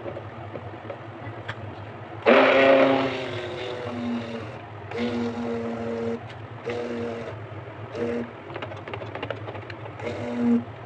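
Electric hand blender (stick blender) running in a basin of soap batter made from used frying oil. Its motor starts about two seconds in with a loud steady hum, then is switched on and off in short bursts several times.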